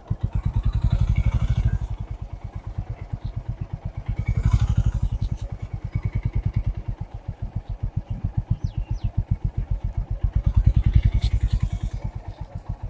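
Motorcycle engine running at low speed with an even, rapid pulsing beat. It grows louder three times as the bike is ridden slowly through a turn.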